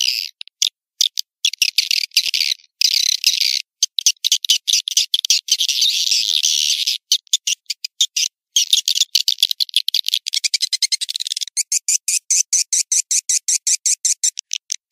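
Recorded swiftlet lure call (suara panggil walet) for a swiftlet bird house: trains of high-pitched twittering chirps, chopped into short pulses with brief gaps. Near the end the pulses come quickly and evenly, several a second.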